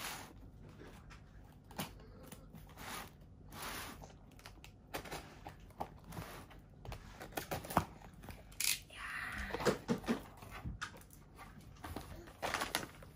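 Box cutter slicing through packing tape on a cardboard box, a run of irregular short scratchy cuts and clicks with tape tearing loose, then the cardboard flaps scraping and rustling as they are pulled open near the end.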